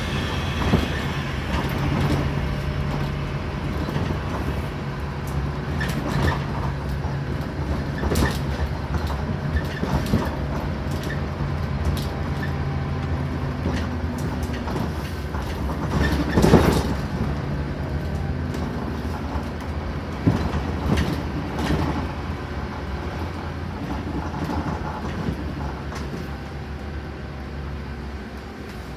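Scania N270UD Omnicity double-decker bus on the move, heard from the upper deck: its 9-litre five-cylinder diesel running with a steady drone over low road rumble, and the body and fittings rattling and knocking, the loudest knock about 16 seconds in. The engine note drops a little near the end.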